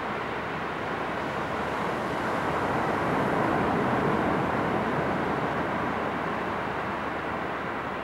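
Ocean surf: waves breaking and washing up a sandy beach in a steady rush that swells to its loudest about halfway through, as a wave breaks, then eases off.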